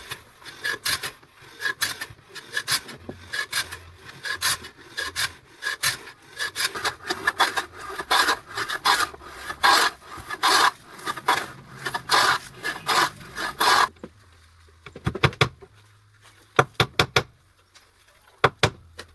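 A hand tool worked back and forth on wood in quick repeated strokes, about two or three a second, stopping about 14 seconds in; a few sharp knocks follow near the end.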